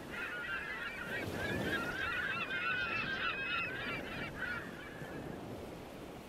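A flock of birds calling: many short, overlapping honking calls that are densest around the middle and die away about five and a half seconds in, over a low rumble.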